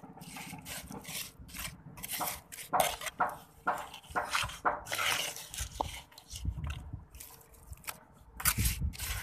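Trowel scraping and tapping on cement mortar, a string of irregular short scrapes and knocks.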